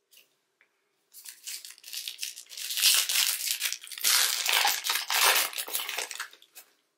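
Trading-card pack wrapper crinkling and tearing as gloved hands rip it open. A dense crackle starts about a second in, runs for roughly five seconds and stops shortly before the end.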